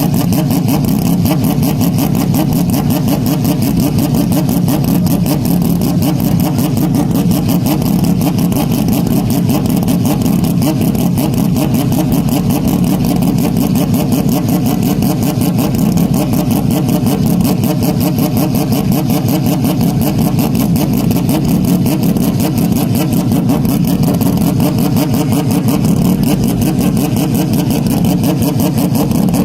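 A race car engine running at a constant speed, loud and steady, with a rapid even pulsing that does not rise or fall in pitch.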